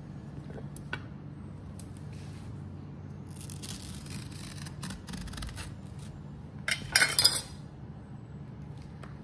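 Kitchen knife scoring and cutting a coconut palm heart on a stone countertop: light knocks and scraping. About two-thirds of the way through there is a louder, brief, crisp burst, with a low steady hum underneath.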